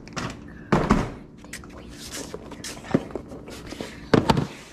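A few knocks and thumps from plastic tackle boxes being handled and set down: a loud clatter about a second in, a sharp click around three seconds, and a loud double knock near the end.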